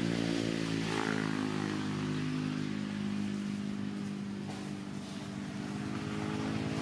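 A motorbike engine running at a steady speed, its pitch shifting slightly about a second in.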